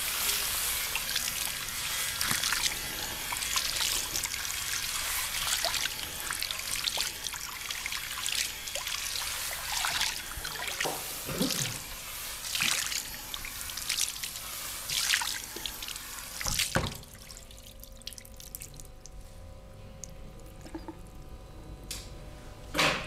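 Hands massaging skin in quick, wet-sounding rubbing strokes that stop about three-quarters of the way through. A short, louder sound comes right at the end.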